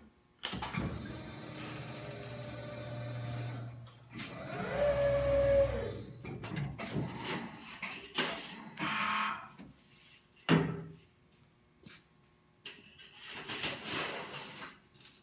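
A CNC sheet-metal folder running for about six seconds, a steady motor hum with a thin high whine that grows louder about five seconds in. It then stops, and a sheet of metal is handled and slid into the folder, with scraping and clanks and one sharp knock.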